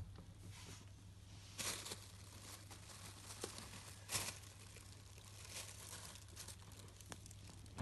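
Plastic bags crinkling and rustling as a cat pushes and climbs through them on a cupboard shelf, in short bursts, the two loudest about a second and a half in and about four seconds in.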